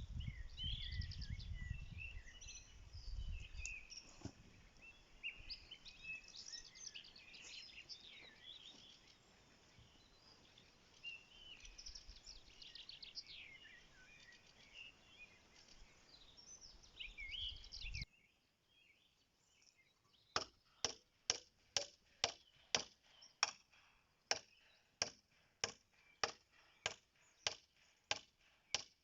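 Several small birds chirping and singing over a faint outdoor hum. After an abrupt cut, a steady run of sharp knocks, about three every two seconds, comes in about two-thirds of the way through.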